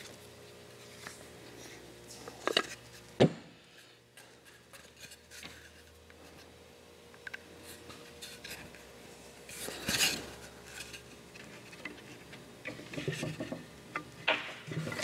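Handling noises of a doweling jig and pine boards being worked by hand: scattered clicks and knocks, the loudest a sharp knock about three seconds in, a short scraping rub around ten seconds, and a run of light wooden knocks near the end as the boards are set together on the bench.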